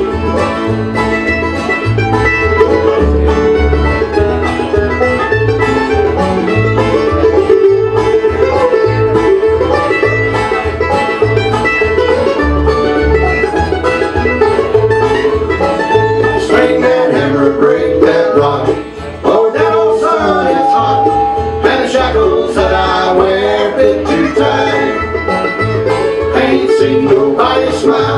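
Bluegrass band playing live: acoustic guitars and mandolin strumming and picking over a steady bass line on the beat, with singing coming in during the second half.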